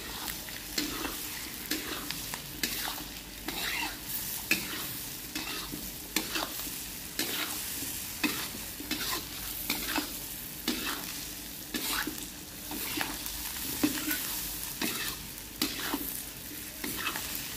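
Goat meat and vegetables sizzling in a wok as a metal spatula stirs through them, scraping and clacking against the pan about once or twice a second over a steady frying hiss.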